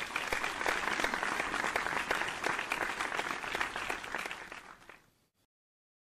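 Crowd applause, a dense patter of many hands clapping, fading in and dying away about five seconds in.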